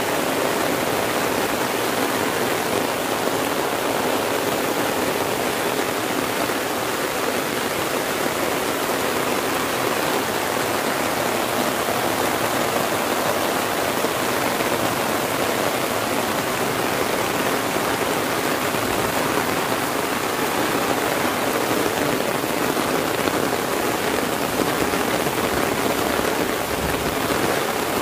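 Heavy rain falling steadily on an umbrella held overhead and on the surrounding grass and trees, a dense, even hiss that keeps the same level throughout.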